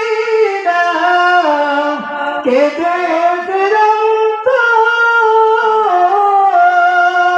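A man singing a Bengali Islamic ghazal solo into a microphone, holding long notes that step and glide between pitches, with no instruments heard.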